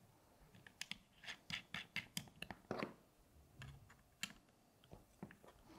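Faint, irregular clicks and light scrapes of a small screw being driven in by hand to lock the spring guide of an SSR63 airsoft rifle.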